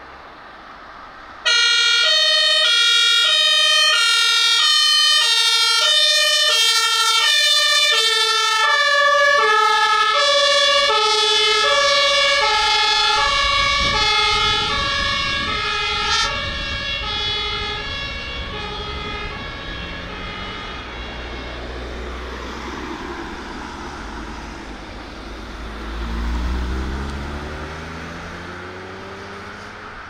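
A fire engine's two-tone siren (Martinshorn) switches on suddenly and alternates steadily between its high and low notes. Both notes drop slightly in pitch as the vehicle passes, and the siren then fades away. Near the end a heavy vehicle's engine rises in pitch as it accelerates.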